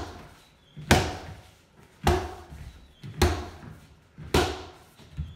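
Strikes landing on focus mitts during pad work: four loud, sharp smacks about a second apart, then a lighter one near the end.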